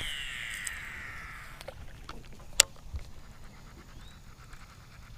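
A fishing cast: line paying out from the fishing reel with a whizz that falls in pitch over about two seconds, then a sharp click about two and a half seconds in.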